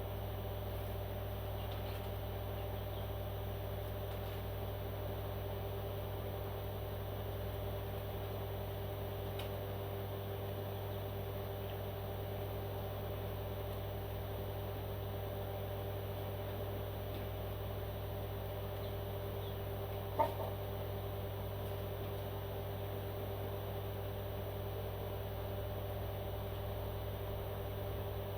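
Steady low machine hum holding a few constant tones, unchanging throughout. A single short sharp sound stands out about twenty seconds in.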